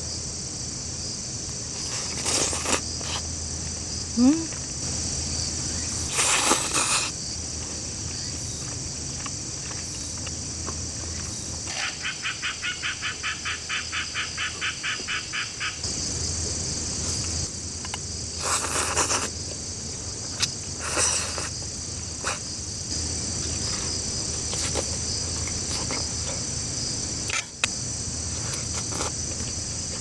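Crickets chirring steadily in a continuous high trill. Midway, one nearby insect gives a rapid pulsed call, about five pulses a second, for about four seconds. A few short rustles or knocks sound in between.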